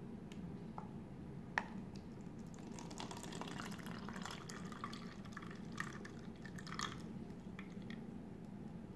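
Frothy mandarin juice pouring from a portable blender bottle into a paper cup, splattering and dripping irregularly for a few seconds. A single sharp tap sounds shortly before the flow.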